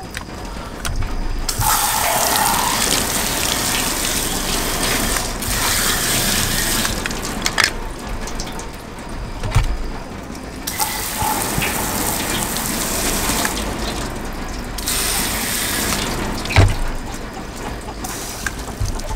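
Garden-hose spray nozzle hissing out water in three bursts that start and stop sharply. A few sharp knocks come between the bursts as tools are set down on the wooden board.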